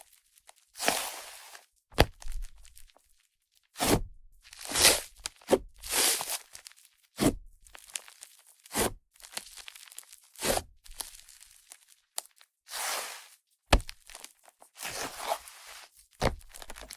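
Hands squishing, pressing and stretching an airy clay-butter slime made with Yoda clay, giving a string of fizzy, sizzling squishes as air is worked through it. Several short sharp clicks come in between, from fingernails hitting the table.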